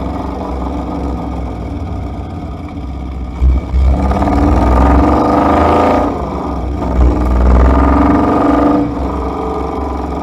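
Ineos Grenadier driving, with a steady low rumble throughout. The engine pulls harder twice, about four seconds in and again about seven seconds in, its note rising and then easing off.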